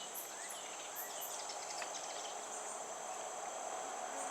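Steady high-pitched insect trill, like crickets, with scattered short bird chirps and calls over it.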